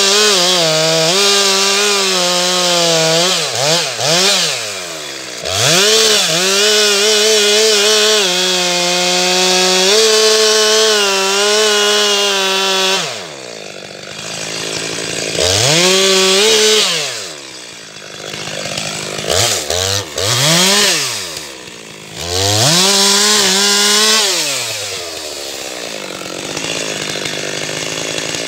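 Two-stroke chainsaw held at full throttle cutting wood. It is let off several times, its note sweeping down and climbing back, and drops to idle near the end.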